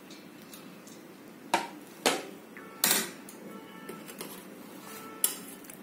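A perforated stainless-steel ladle knocking against a steel pot and pan four times while cooked rice is spread in a layer. Each knock is a sharp metallic clink with a brief ring.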